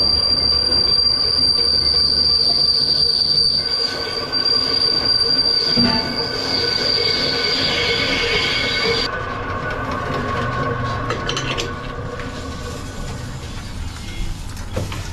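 Lathe machining a truck brake drum: the cutting tool squeals against the spinning metal with a steady high whine, which cuts off about nine seconds in. The machine then runs on more quietly, with a few clicks and knocks near the end.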